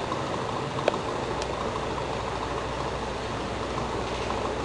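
Steady low mechanical hum with hiss, and a faint click about a second in.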